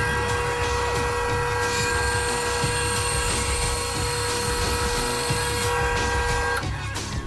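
Band saw running and cutting a block of wood: a steady motor whine over a low rumble, with higher tones from about two seconds in that stop a little before the end.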